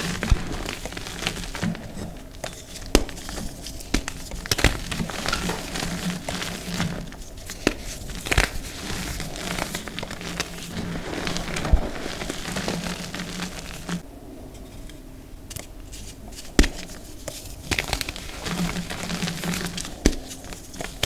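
Hands crumbling and squeezing dry reformed gym chalk, a crunchy crackle of powder and small chunks with scattered sharp snaps as pieces break.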